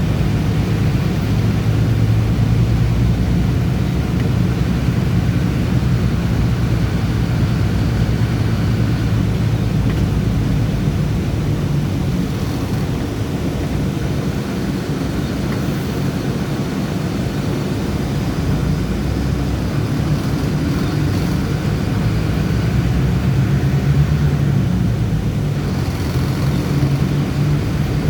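Bus engine and road noise while driving: a steady low drone that swells and eases slightly over time.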